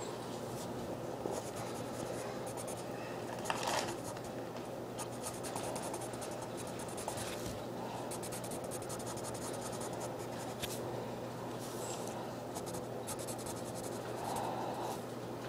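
A pen scratching across paper in many short repeated strokes while drawing a striped pattern, over a steady low hum.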